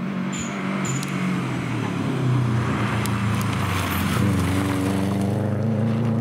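Subaru Impreza rally car's flat-four engine passing by at speed, growing louder as it nears. The engine note rises and falls with throttle and gear changes, dipping about four seconds in and then climbing again as the car pulls away.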